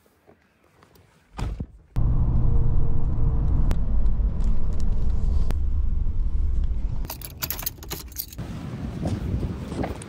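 Van door shutting with a thump, then about five seconds of the van's cabin noise while driving: a steady low engine and road rumble. It gives way to a short burst of sharp clicks and clatter and then a quieter noisy background.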